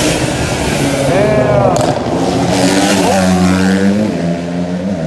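Car engine revving hard, its pitch rising and falling several times over a steady low running note.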